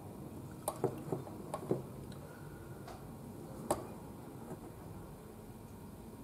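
A few small clicks and taps from handling a miniature bust and a paintbrush: a quick cluster about a second in and one sharper click a little past the middle, over a low steady background hum.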